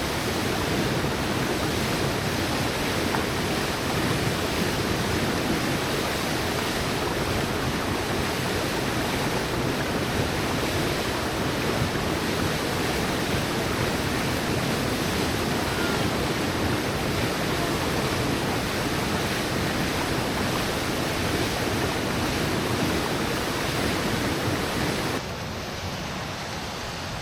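Steady rushing of river current over a riffle, an even wash of water noise that drops a little in level near the end.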